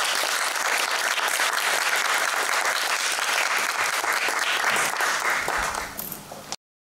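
Audience applauding steadily, easing slightly near the end and then cutting off suddenly about six and a half seconds in.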